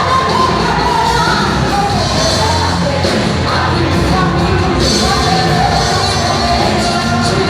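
Pentecostal worship music: a voice singing over full accompaniment, loud and steady.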